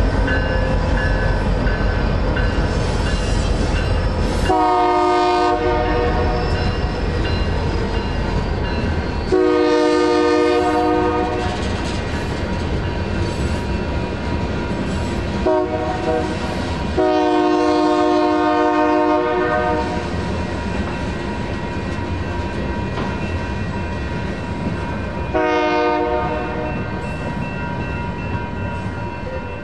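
Union Pacific freight train passing a grade crossing: the locomotive horn sounds long, long, short, long, the standard grade-crossing signal, then one more short blast near the end. Underneath runs the rumble of the locomotives and the rolling covered hopper cars, with the crossing bell ringing steadily.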